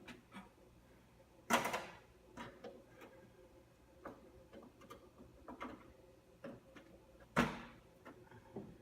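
Scattered clicks and light knocks of desktop computer parts being handled and fitted during reassembly, with two louder knocks about a second and a half in and near the end.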